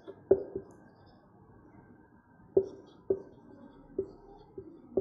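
Marker pen writing on a whiteboard: a string of short, sharp taps and scrapes at irregular spacing as the letters go down, about seven in all.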